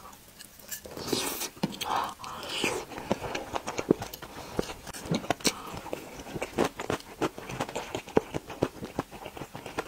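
Close-miked chewing and mouth sounds of a person eating a piece of braised meat, with many short wet clicks and smacks.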